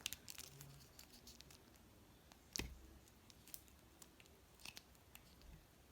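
Near silence with a few faint clicks and taps from a plastic action figure being handled, the sharpest about two and a half seconds in.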